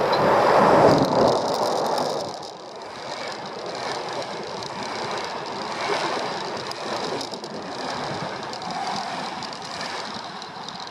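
Passenger train passing at close range over a steel railway bridge: the wheels and rails make a steady clattering rumble as the coaches go by. It is loudest in the first two seconds as the train arrives, then evens out.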